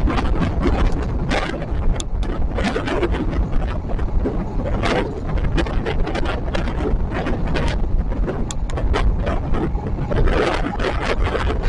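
Passenger train running on the track, heard from on board: a steady rumble with frequent irregular rail clicks and knocks, and wind noise.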